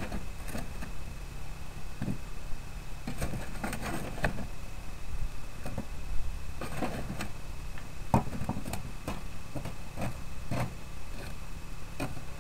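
Charcoal briquettes clinking and knocking as they are moved and set into place under a cast iron camp oven, in irregular clusters of light clicks over a low rumble.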